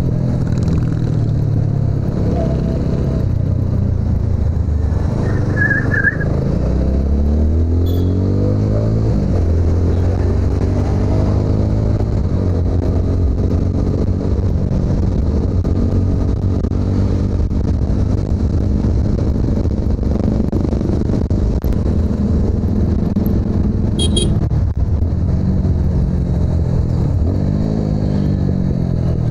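TVS Apache RTR 200's single-cylinder engine running on the move. Its pitch climbs as it accelerates about eight seconds in and again near the end.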